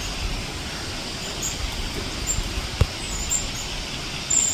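Red-browed finches calling at a seed feeder: short, very high, thin chirps scattered through, clustering near the end, over steady outdoor background noise. A single sharp click a little after halfway.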